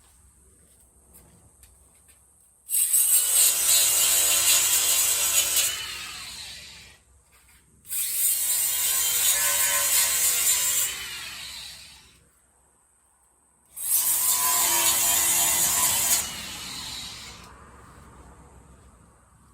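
Angle grinder prepping the steel frame surface for welding, run in three bursts of about three seconds each; each starts suddenly and fades as the disc spins down.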